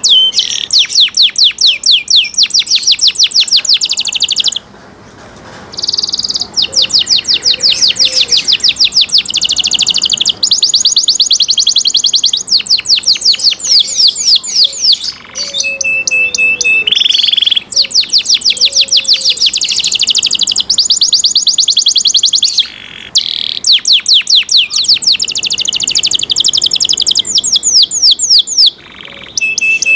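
Domestic canary singing a long, fast song: runs of rapidly repeated high notes trilled one after another, with a few short pauses and a held steady whistle about halfway through.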